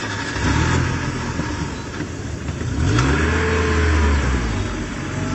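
A car engine running and revving as a vehicle pulls away, its pitch swelling up and back down about three seconds in.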